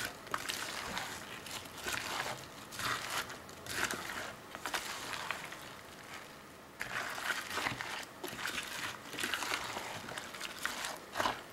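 Spatula stirring chopped apples through whipped cream in a glass bowl: a run of irregular wet stirring strokes, with a lull of about a second a little past the middle.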